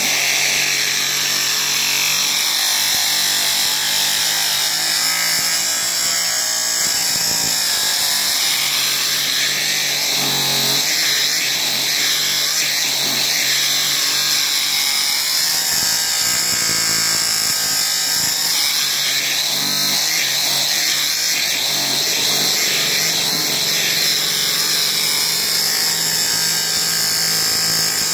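Compressed air blasting steadily through an air-filter cleaning wand inside a large cylindrical engine air filter, a loud continuous hiss as the dirty filter is blown clean from the inside out.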